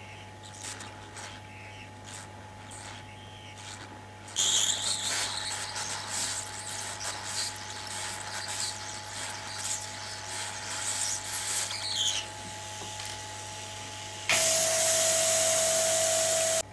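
Hot-air SMD rework station blowing through its nozzle onto a motherboard MOSFET to melt its solder for removal. The hiss grows louder about four seconds in and wavers. Near the end comes a louder steady hiss with a steady tone that cuts off suddenly, over a low steady hum.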